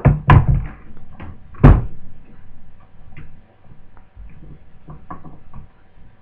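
Hard knocks and clunks of objects being handled and set down: several loud ones in the first two seconds, the loudest nearly two seconds in, then lighter clicks and taps.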